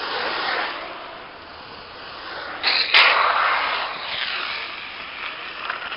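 Longboard wheels rushing past on asphalt, a swell of noise as the riders go by. It gets suddenly louder about three seconds in, with a sharp click, then fades.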